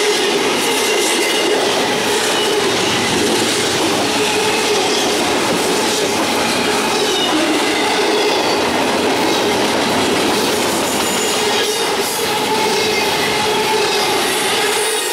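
Freight train of double-stack container well cars rolling past close by: steady, loud wheel-on-rail noise from the passing cars.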